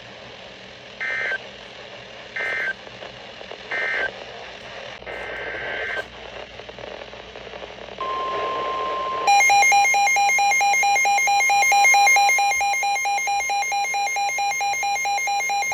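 Emergency Alert System data bursts from a NOAA Weather Radio broadcast: three short two-tone chirps about a second and a half apart, then a longer one. About 8 s in a steady warning alert tone starts, and about a second later a weather radio receiver's shrill electronic alarm joins it, pulsing about four times a second and the loudest sound here, signalling an incoming warning.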